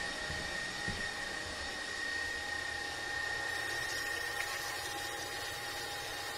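Steady machine hum with a constant thin high-pitched whine, like an electric motor running.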